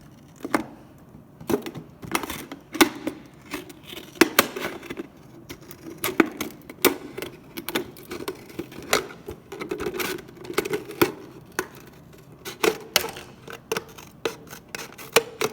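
Scissors snipping through a thin plastic pop bottle: an uneven series of sharp snips with the plastic crinkling between them.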